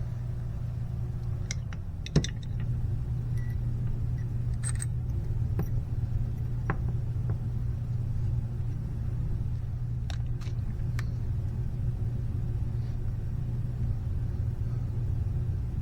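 A few light metallic clicks and taps of small parts and tools as a slow jet is fitted into a Honda outboard carburettor, over a steady low hum.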